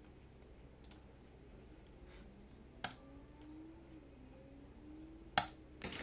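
A few separate keystrokes on a modded FL eSports Q75 mechanical keyboard with lubed Akko CS Ocean Blue switches and foam and tape mods: short, sharp clacks about one and three seconds in, then a louder pair near the end.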